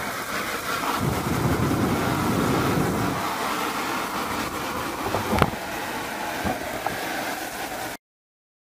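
A pump-fed hose nozzle sprays a strong water jet onto rose leaves and a plastic sheet, making a steady rushing hiss. There is a single sharp knock about five seconds in, and the sound cuts off suddenly near the end.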